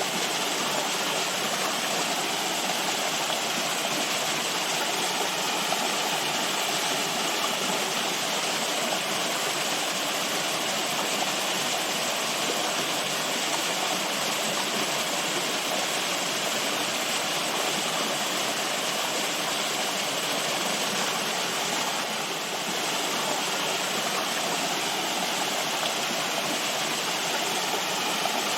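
Running water, a steady, even rush with no breaks or separate events and little deep rumble.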